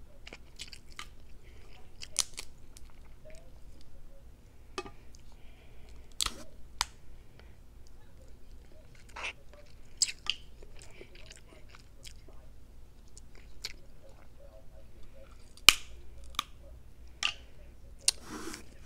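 Close-up eating sounds: wet chewing and lip smacks with irregular sharp clicks and snaps as crab legs and seafood are picked apart and eaten by hand. The loudest snap comes about three-quarters of the way in.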